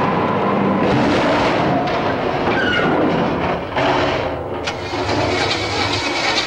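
Car engines revving hard during a chase, with tyres squealing. The sound dips briefly about four seconds in, then a sharp click and the engine noise comes back.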